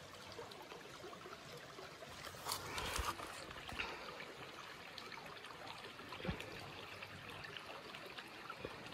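Shallow creek trickling steadily over stones, with a few brief knocks, the strongest about a third of the way in and another past the middle.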